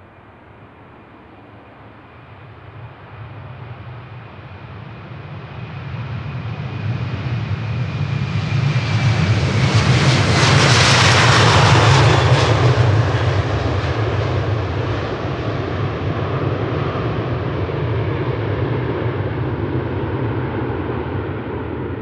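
Twin-engine Airbus A330-300 airliner at takeoff power passing by: the jet noise builds up to its loudest about halfway through, with the engines' high whine sliding down in pitch as it goes past, then fades slowly into a low rumble.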